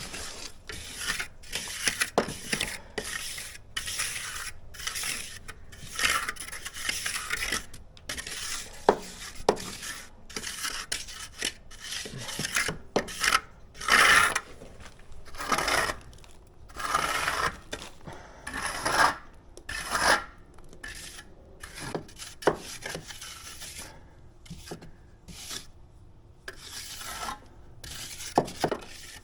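Irregular scraping and rubbing strokes, like hand rasping or sanding, with a few sharp clicks between them.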